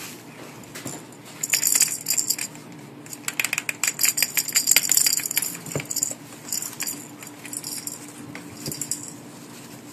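Something small and metal jingling and rattling, shaken in quick bursts: a long run from about a second and a half in to about six seconds in, then shorter shakes near the end.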